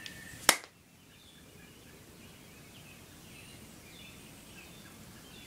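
A single sharp click about half a second in, then quiet outdoor background with faint, scattered bird chirps.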